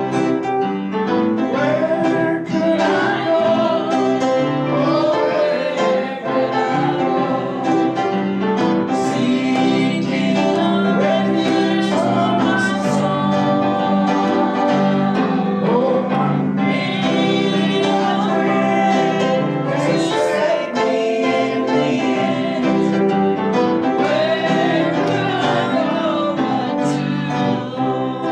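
A gospel song played live on piano and guitar, with singing.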